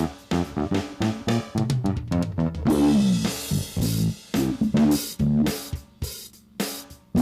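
Band music with electric guitar, bass guitar and a drum kit playing a driving rhythm.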